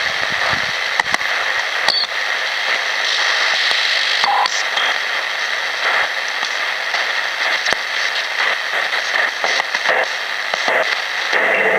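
Sangean ATS-505 shortwave receiver hissing with static through its speaker as it is tuned up the band in steps. There are faint clicks and a couple of short whistles as signals pass, and near the end a station's audio comes in over the noise.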